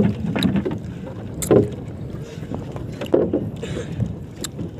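Wind and water noise aboard a small wooden outrigger canoe, with irregular knocks and thumps on the hull as a fish-trap rope is hauled up by hand.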